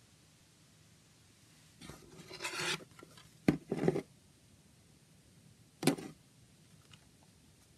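Plastic CD jewel case being slid and picked up off a table and turned in the hands: a scraping rub about two seconds in, then sharp plastic clicks and short rattles, with one last click a couple of seconds later.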